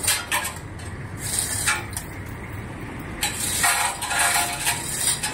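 Metal clinking and rattling from the lifting chain and steel frame of a wood chipper as it is hoisted, with a longer rattle from about three seconds in.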